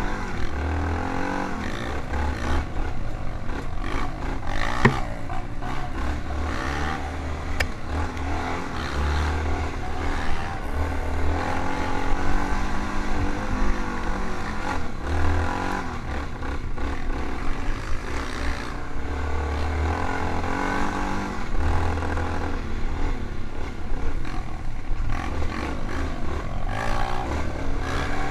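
Single-cylinder off-road engine of a dirt bike or quad, revving up and down continuously as it is ridden along a dirt trail, heard from on board with wind buffeting the microphone.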